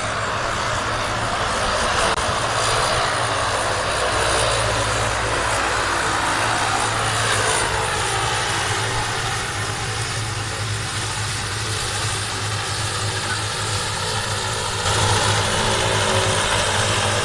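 Airliner's engines running with a steady low drone and broad rushing hiss as the plane comes in to land, growing slightly louder near the end.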